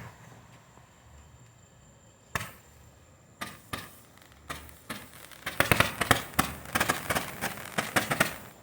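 Shogun Fireworks Cloud Dragon firework fountain going off. After about two quieter seconds, sharp pops start, a few at first and then, from about five seconds in, dense rapid crackling.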